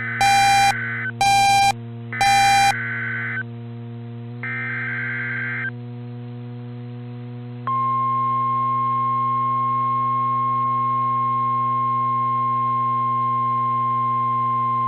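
NOAA Weather Radio emergency alert tones: three short buzzing bursts of SAME digital header data, with a few sharp beeps over the first two, then after a short pause the single steady tone of the weather radio attention signal, over a constant low hum.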